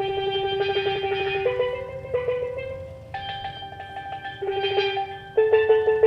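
Steelpan music: held notes played as fast rolls of repeated strikes, the melody stepping between a few pitches. It softens midway and comes back louder near the end.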